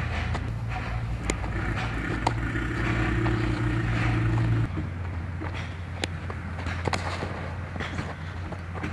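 Ambient field sound during baseball infield practice: a steady low hum with a few scattered sharp pops of a baseball striking a leather glove. The hum changes abruptly about halfway through.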